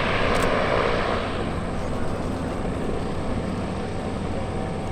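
Steady engine and propeller drone of the Goodyear semi-rigid airship Wingfoot Three maneuvering in flight, swelling briefly in the first second or so.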